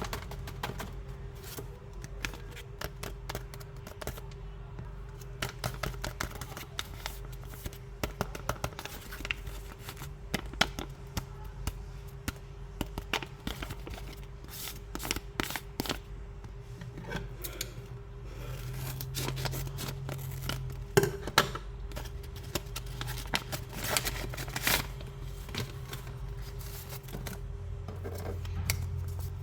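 Hands opening and handling a blind-bag toy package: irregular crackling, scraping and clicking of packaging, over a faint steady hum.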